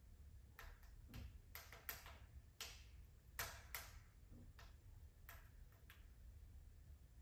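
Wood fire crackling softly in a fireplace: irregular sharp clicks and pops, a dozen or so, the loudest about three and a half seconds in, over a faint low rumble.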